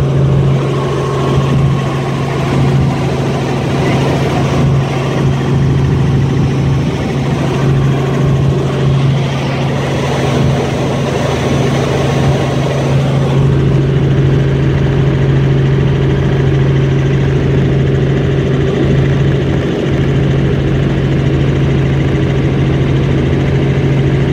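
Helicopter in flight heard from inside the cabin: a loud, steady drone of engine and rotors with a constant low hum. About halfway through the rumble grows deeper and the hiss fades a little.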